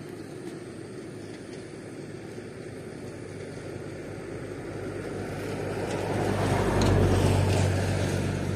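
A motor vehicle's engine passing by: a low, steady hum that grows louder to a peak about seven seconds in, then fades.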